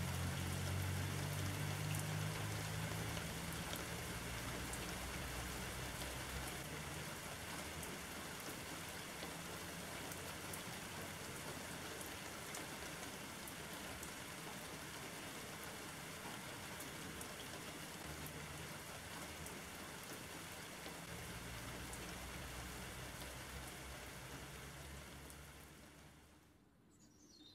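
Steady rain with a dense patter of individual drops ticking. A low rumble sits underneath for the first few seconds and again later on. The rain fades out shortly before the end.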